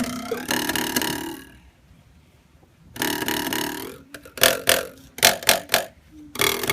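Drinking-straw oboe blown: buzzy reed tones, a longer one, a second held note, then a run of short, loud blasts.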